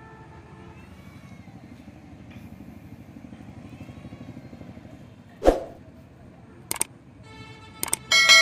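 Subscribe-button animation sound effects: a whoosh about five and a half seconds in, two quick double mouse clicks, then a bell chime that starts ringing near the end. Under them, a low steady rumble like a distant motor.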